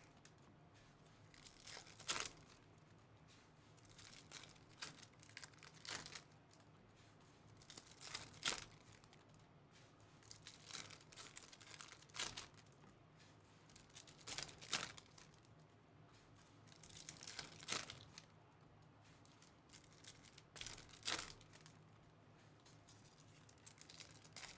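Faint, intermittent swishes and crinkles of chrome baseball cards being flipped through by hand from a freshly opened pack, with the foil pack wrapper crinkling. The short strokes come every second or two.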